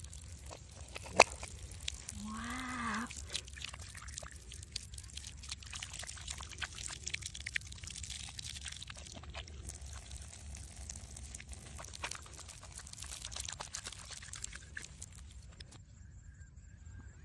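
Water dripping and trickling in a dense run of fine splashes that stops suddenly near the end. A single sharp click about a second in is the loudest sound, and a short pitched sound rising and falling follows a second or so later.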